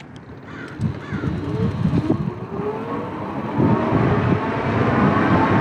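Electric motor of a 750 W fat-tire e-bike whining and rising slowly in pitch as it accelerates under full throttle. Wind rumble on the microphone grows steadily louder with the speed.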